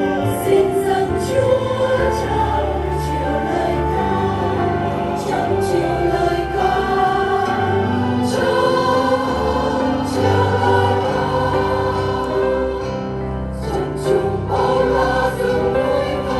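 Sacred-style choral music: a choir singing sustained, layered chords over a slowly changing low bass.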